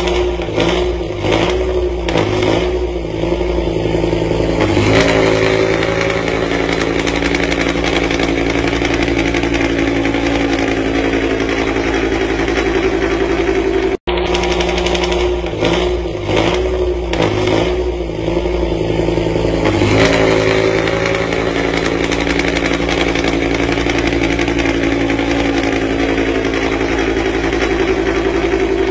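BMW E60 M5's V10 engine running at idle through its exhaust. The idle wavers for the first few seconds, then settles about five seconds in to a steady, slightly louder idle. The same sequence repeats once about halfway through.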